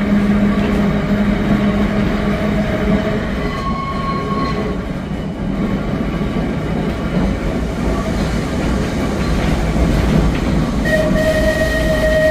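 Tram running along its rails, a steady rumble with faint tones from the car. A long, steady high tone comes in near the end and holds.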